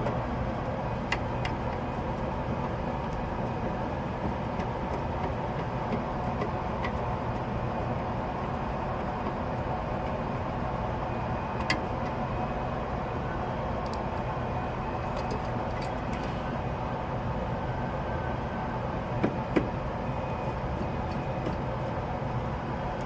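Steady machine running noise with a low hum, broken by a few light clicks and taps: once early, once about halfway, and a quick pair near the end.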